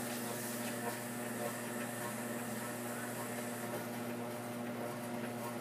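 A machine running steadily: a constant low hum with a hiss over it and a few faint clicks.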